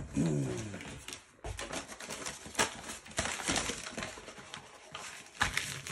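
Crinkling and rustling of a crumpled plastic sheet being handled, with a few sharp crackles.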